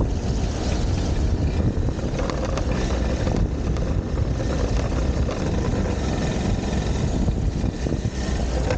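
Wind buffeting a camera's microphone: a loud, steady low rumble.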